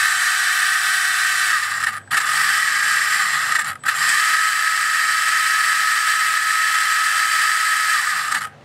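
ORCA Blitreme 3 brushless RC motor spinning under an analyzer's automatic test, driving a load motor through a 32-tooth pinion and gears: a steady high whine with gear noise. It cuts out for an instant twice, about two seconds in and again near four seconds, then stops just before the end as the test finishes.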